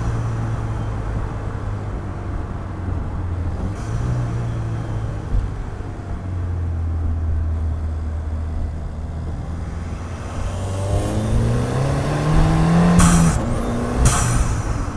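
2015 Ford Fiesta ST's turbocharged 1.6-litre four-cylinder, fitted with an aftermarket cold air intake, running at low revs for about ten seconds. It then pulls up in revs, with a rising whistle. Two short rushes of noise come near the end as the revs drop at a shift.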